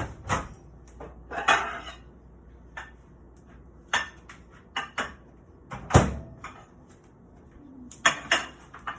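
Kitchen utensils clinking, knocking and scraping against plates and a frying pan as cooked eggs are plated: a dozen or so separate clatters, with a short scrape about a second and a half in and the loudest knock about six seconds in.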